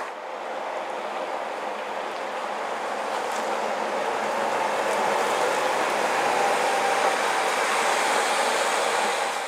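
Modern three-axle touring coach driving slowly past: a steady engine and tyre sound that grows louder over the first few seconds, then holds.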